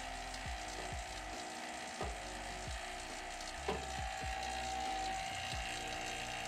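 HVAC vacuum pump running steadily while pulling a vacuum on a mini-split's refrigerant lines: a constant hissing rattle with a steady mid-pitched whine. A couple of short knocks from handling the gauge-manifold valves come through it.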